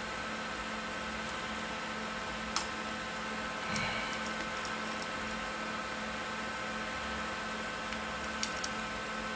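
Steady background hum and hiss with a few small sharp clicks and taps as small laptop parts and connectors are handled, the sharpest about two and a half seconds in and a quick pair near the end.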